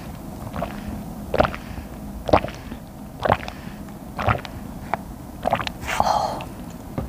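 Banana milk drunk through a straw from a small carton, with a gulp about once a second.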